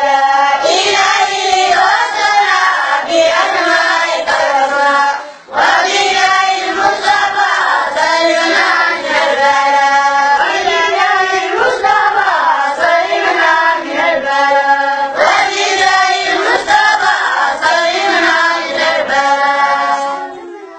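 A group of boys singing together, with a short break about five and a half seconds in; the voices fade away near the end.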